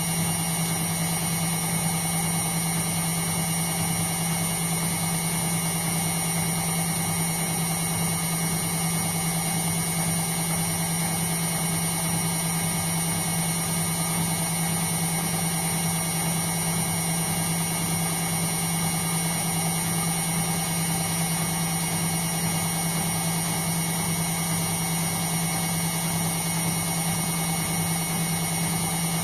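Indesit washing machine spinning at a steady speed, a constant motor hum with a thin high whine and no change in pitch or rhythm.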